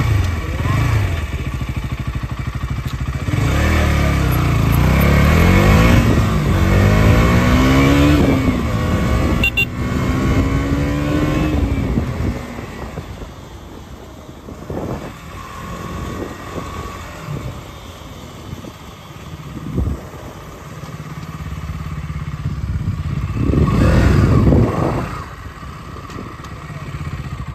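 KTM Duke 200's single-cylinder four-stroke engine pulling away and accelerating, its note rising in pitch through the gears for the first dozen seconds. It then runs more quietly for several seconds and rises again in a louder surge of throttle near the end.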